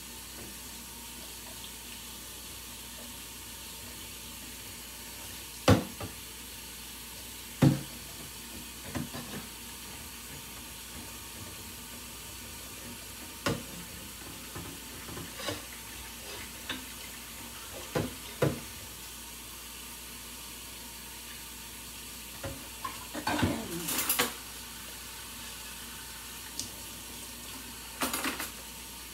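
Kitchen faucet running steadily into a stainless steel sink during hand dish-washing, with scattered sharp clinks and knocks of dishes and utensils, and a busier clatter about two-thirds of the way through and again near the end.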